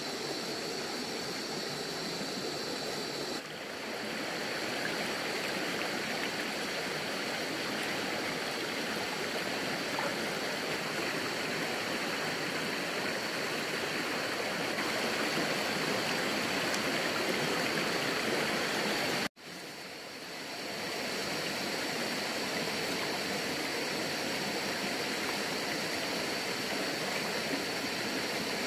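Steady rushing of a stream's flowing water. About two-thirds of the way through it cuts out for a moment and fades back in.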